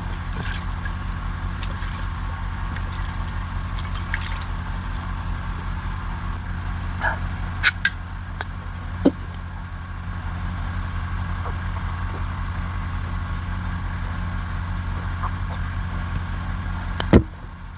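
A steady low mechanical drone, like a running motor, with a few sharp clicks and knocks. The drone cuts off just after a loud click near the end.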